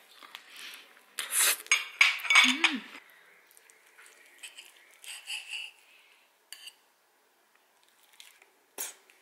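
Metal knife and fork scraping and clinking against a ceramic plate while cutting food. The scraping is loudest about one to three seconds in, followed by a few lighter clinks and taps.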